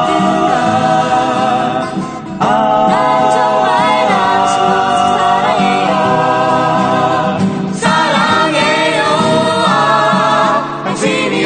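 Korean pop song sung by a vocal group over instrumental accompaniment, with new sung phrases beginning about two and a half seconds and about eight seconds in.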